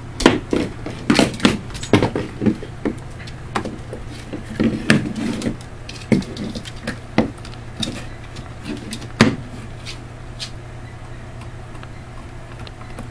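Beagle gnawing on a bone: irregular clicks and knocks of teeth on bone, coming thick and fast for the first several seconds, then thinning out to a few scattered ones.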